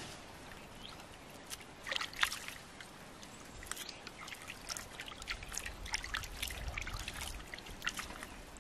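Small river snails scrubbed by hand on a flat stone in shallow river water: a busy, irregular run of shell clicks and scrapes, with water splashing and trickling.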